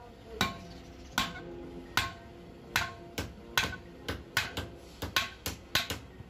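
Hammer blows on a steel truck brake shoe: a dozen or so sharp metallic strikes, irregularly spaced at about two a second, each with a short ring.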